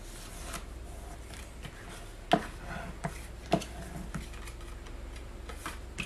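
Black cardstock flaps being handled and pressed down on a craft mat: light paper rustling with about five sharp taps and clicks, the loudest a little over two seconds in, over a low steady hum.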